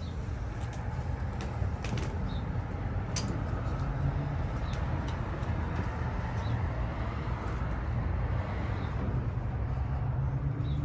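Steady rumble of road traffic going by, with a few faint light clicks.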